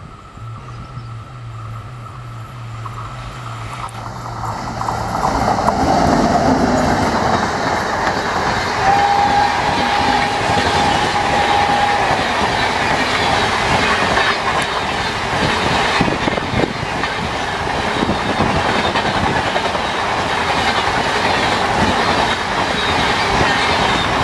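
A WAP-7 electric locomotive and its long train of passenger coaches passing at high speed. The rumble builds over the first few seconds, then the wheels clatter steadily over the rail joints as the coaches go by. A steady tone sounds for about three seconds partway through.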